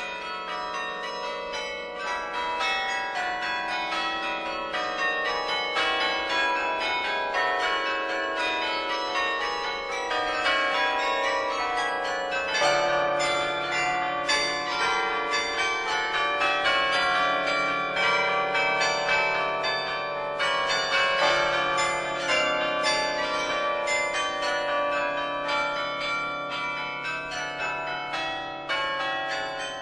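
Bells ringing in a dense peal, many struck notes ringing on over one another. Lower notes join about twelve seconds in.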